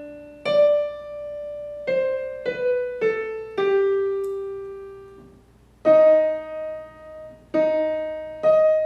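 Piano playing a vocal warm-up accompaniment: a high note, then four notes stepping down the scale, then struck chords that shift upward to set the next key, each note struck and left to ring and fade.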